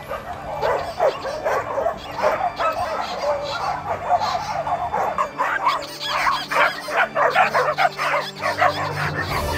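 A pack of dogs barking and yipping, many short barks overlapping, growing busier and louder in the second half.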